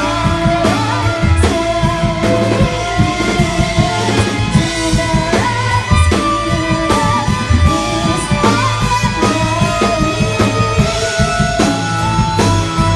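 A rock band playing live: guitar over drum kit, with a bass line underneath.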